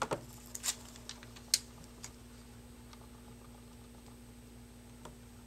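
A few light clicks and taps from handling an iPhone and its plastic screen-protector film while lining them up, most in the first two seconds with the loudest about a second and a half in, and one faint tick near the end. A steady low hum runs underneath.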